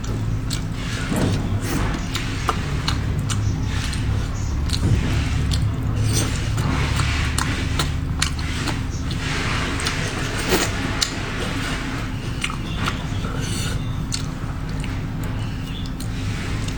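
A person eating seafood close to the microphone: wet chewing and biting with many small sharp clicks and crackles. A steady low hum runs underneath.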